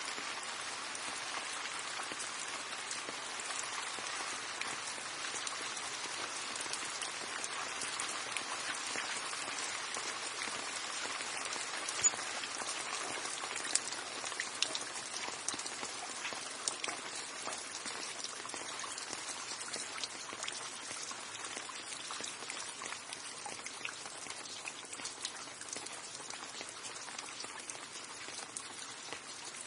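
Steady rain falling, with individual drops ticking on a surface throughout and one sharper drop about twelve seconds in. The rain grows slightly quieter toward the end.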